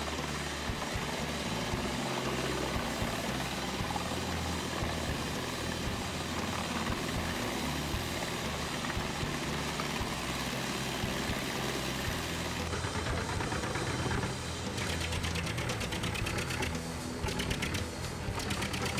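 Self-powered drum wood chipper running and chipping logs, its engine and cutting drum heard under background music. About two-thirds through, the sound turns to a fast, even rattle.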